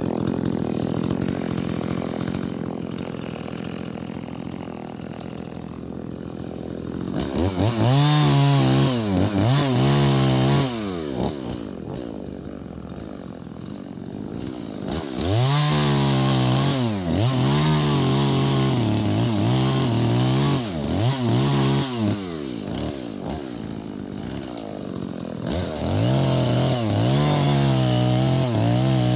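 Two-stroke chainsaw idling, then revving up to full speed three times, its pitch wavering and dipping as it cuts into wood, and dropping back to idle between cuts.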